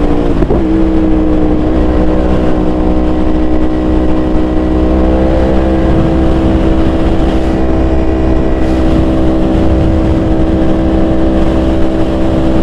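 Yamaha R1 inline-four engine with a titanium full exhaust, running at a steady speed on the move; its pitch eases down in the first second, then holds nearly even, over a low rumble of wind.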